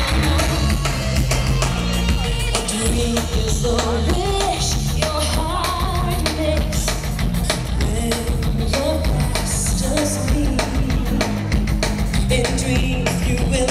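Loud music with a singing voice over a steady bass and drums.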